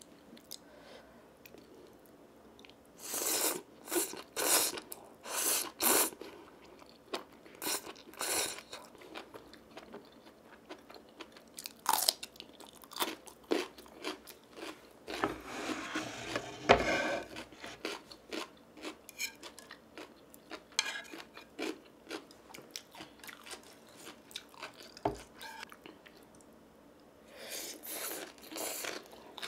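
Close-miked eating: spicy instant stir-fried noodles slurped in quick bursts a few seconds in and again near the end, with chewing and small wet mouth clicks between.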